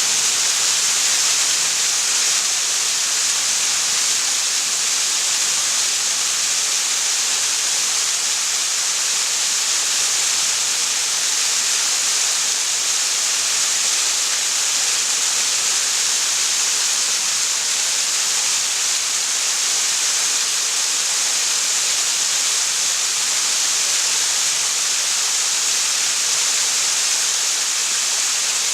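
Waterfall pouring steadily: an even, unbroken rush of falling water, mostly a bright hiss with little low rumble.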